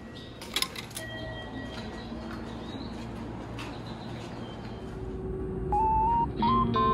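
Paper ticket fed through an automatic ticket gate, with a quick clatter of the gate's mechanism about half a second in and steady high electronic tones over station hall noise. Guitar music comes in near the end.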